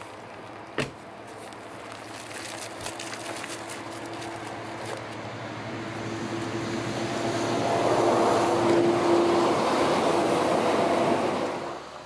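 A car door shuts with a single knock about a second in. Then a passing motor vehicle grows steadily louder, with a steady hum, and cuts off suddenly near the end.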